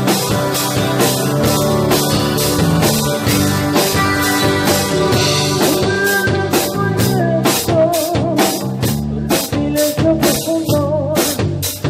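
Rock band music: a drum kit keeps a steady beat under sustained guitar and bass chords. A wavering lead melody comes in about halfway through.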